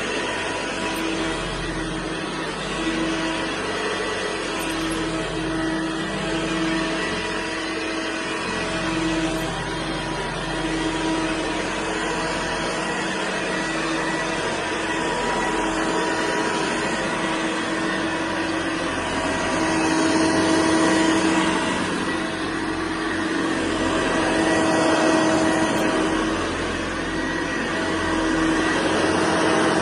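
Hoover Senior 652A upright vacuum cleaner running steadily, a constant motor hum under a broad rushing noise, swelling in level a couple of times later on.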